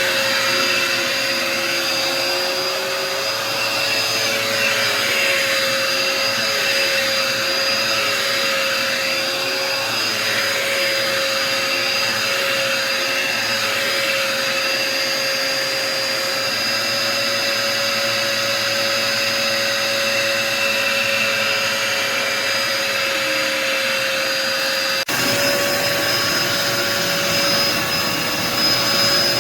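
Dirt Devil Endura Reach bagless upright vacuum cleaner running: a steady motor whine over rushing air as it is worked over a hardwood floor. The pitch shifts slightly near the end.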